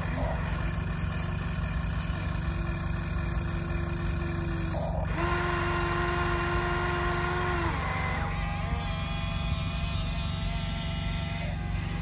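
Electric drive motors of a Huina radio-controlled model excavator whining as the boom, arm and bucket move, the whine changing pitch a few times, over a steady low hum.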